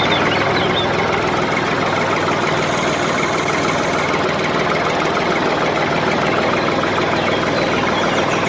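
A small motor running steadily with a dense, even buzz.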